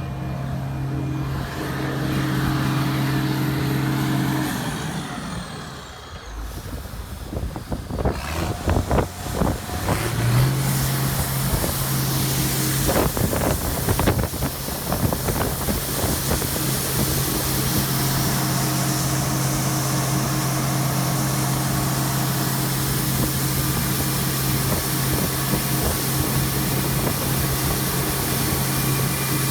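A vehicle engine running steadily, which stops a few seconds in. After some irregular clatter it starts again about ten seconds in, picking up briefly, and then runs steadily.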